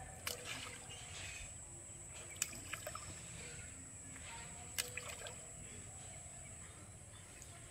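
Small bait balls dropping into pond water by hand, three short sharp plops about two seconds apart, over a quiet steady background with a faint high hiss.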